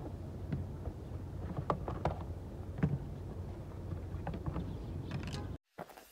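Low steady rumble with a few faint clicks and taps scattered through it; the sound cuts off abruptly near the end.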